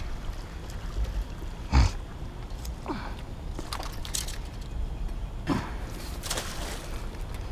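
Hooked fish splashing and sloshing at the water surface as it is reeled in, in a few short bursts, over a steady low rumble. A loud thump comes about two seconds in.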